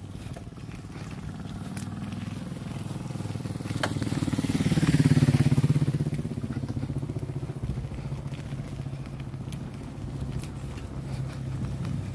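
A motorcycle engine passing close by: it swells to its loudest about five seconds in, its pitch dropping as it goes past, and the engine hum carries on after. Tyres crunch on the loose gravel of the rough road surface.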